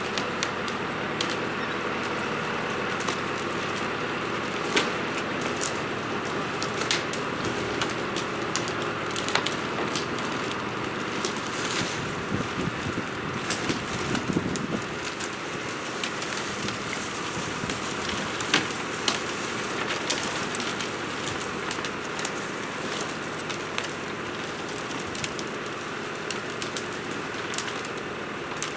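Farm tractor engine running steadily, with many irregular crackles and snaps over it, typical of a log being dragged through brush and branches.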